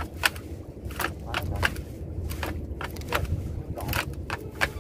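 Gill net being hauled into a small boat: irregular sharp clicks and knocks, several a second, over a low steady rumble.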